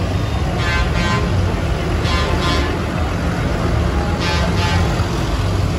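Diesel engines of large farm tractors running as they drive slowly past close by, a steady low rumble. Over it, three pairs of short pitched horn toots: about a second in, about two seconds in, and a little after four seconds.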